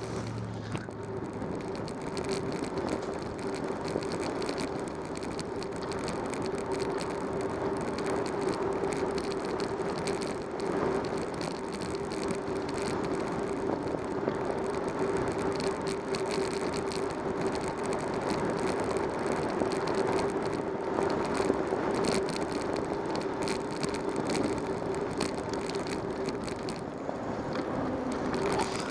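Bicycle riding along a paved road, heard from a camera mounted on the bike: a steady rolling whir from the tyres and drivetrain, with one constant low tone and light rattling and ticking.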